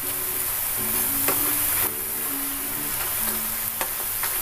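Rice-flour snack pieces deep-frying in hot sunflower oil, sizzling steadily as a metal ladle stirs them, with a few sharp clicks of the ladle against the pan. Soft background music plays underneath.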